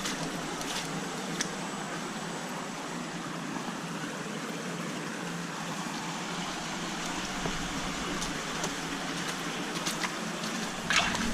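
Steady rushing noise, with a louder, sudden noise just before the end.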